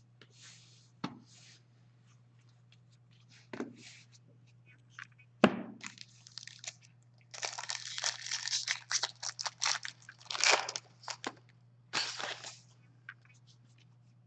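Shiny foil wrappers of Upper Deck hockey card packs crinkling and tearing as packs are opened by hand, with cards clicking and tapping on the desk. One sharp knock stands out about five seconds in, and the crinkling comes in two dense stretches in the second half.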